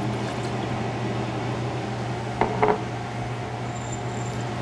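Steady hum of a commercial kitchen's ventilation fan, with a brief pitched sound about two and a half seconds in.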